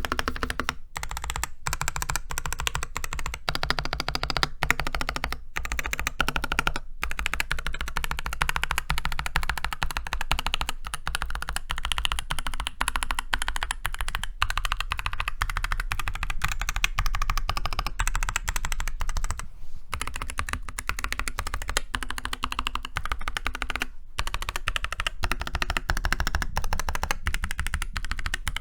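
Typing sound test on a Keychron C2 Pro 8K mechanical keyboard fitted with Durock Ice King tactile switches and Hammerworks keycaps: fast, continuous keystrokes with only a few brief pauses.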